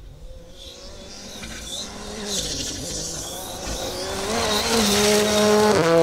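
Ford Fiesta R5 rally car's turbocharged four-cylinder engine approaching at speed on a loose gravel stage, growing steadily louder, its revs rising and falling as it shifts and brakes, over the hiss of tyres throwing gravel.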